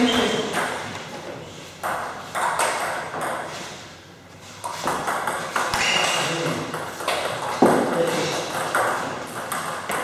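Table tennis ball clicking off paddles and the table in short rallies, an irregular series of sharp, light ticks.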